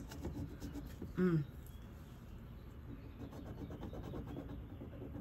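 A short falling hum from a woman about a second in, then quiet handling noise: faint rubbing and light ticks of small objects being moved and scratched.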